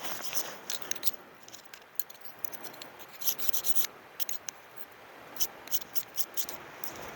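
Camping gear being handled: light rustling and rubbing with scattered short clicks and scrapes, most of them between about three and six and a half seconds in.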